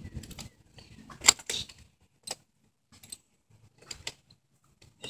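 Socket ratchet working the tight bar nuts on a chainsaw's side cover to loosen them: scattered sharp metallic clicks and clinks, the sharpest about a second in.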